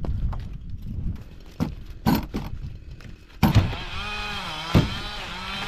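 Split firewood blocks clunking and knocking as they are dropped and stacked into a wooden-sided sled box, about half a dozen knocks. From about the middle on, an engine hums under them, its pitch rising and falling.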